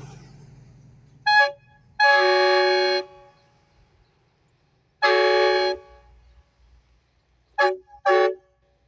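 Air train horn blown with compressed air from a blowgun held on its valve, sounding loud steady blasts: a short toot, a one-second blast, a slightly shorter blast, then two quick toots near the end.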